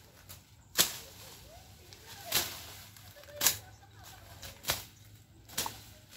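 A hand-held blade slashing through thick grass and weeds. Five sharp swishing strokes come roughly once a second, each cut off quickly.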